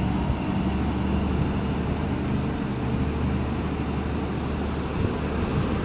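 Class 43 HST diesel power car engine running steadily, with a low even drone.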